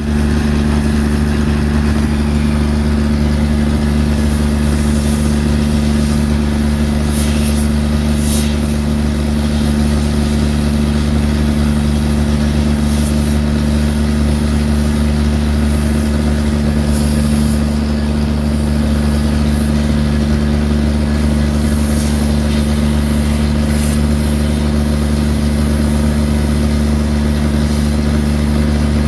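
Excavator's diesel engine running steadily at an even pitch, with a few brief high-pitched scrapes or hisses over it.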